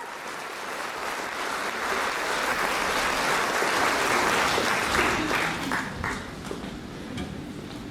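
Theatre audience applauding, building over the first few seconds and then dying away to a few scattered claps.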